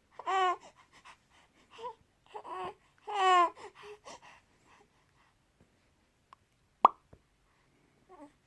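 A 3-month-old infant cooing: a string of short, high-pitched vowel sounds, the longest near the start and about three seconds in. A sharp click comes near the end.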